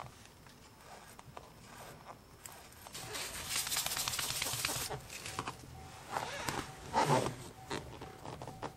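A hand rubbing back and forth over a putty-filled spot on wooden flooring, smoothing the repair flush. It makes a steady scuffing hiss for about two seconds in the middle, then a few shorter scuffs.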